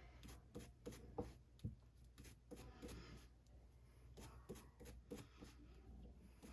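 Faint rubbing and light clicks as small fishing-reel parts are handled and wiped to clean off old grease.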